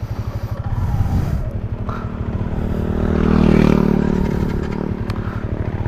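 Yamaha Sniper 150's single-cylinder engine, fitted with a Pitsbike racing ECU, running at idle and then picking up revs about a second and a half in. It is loudest near the middle, then eases back to a steady run.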